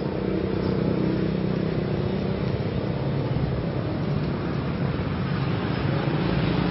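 Steady low rumble of motor traffic, with an engine hum running under it.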